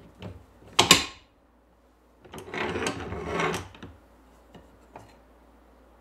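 Quick-release F-clamps on a tabletop vise being released. There is one sharp metallic clack about a second in, then about a second and a half of sliding and rattling from the clamp bars and jaws, and two faint clicks after.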